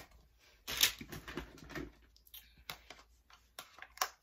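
Plastic phone case clicking and tapping as a phone is popped out of it and handled: a string of sharp clicks, the loudest about a second in.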